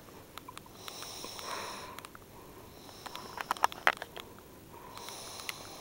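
A sleeping woman snoring: breathy, hissing snore breaths, each about a second long, three times. A cluster of sharp clicks comes in the middle.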